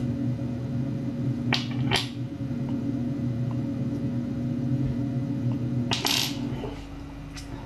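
A small steel pin clicking against a carbon-fibre rod as it is pushed in and pulled out, a snug push fit: one sharp metallic click at the start, two more about a second and a half and two seconds in, and a short scrape about six seconds in. A steady low hum runs underneath and drops away near the end.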